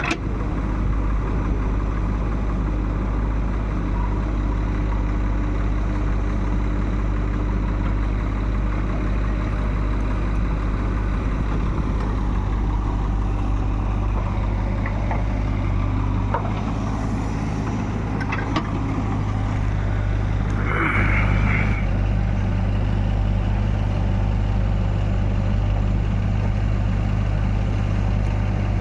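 Heavy diesel machinery running steadily with a deep, even engine drone. About 21 seconds in, a short higher-pitched sound rises over it.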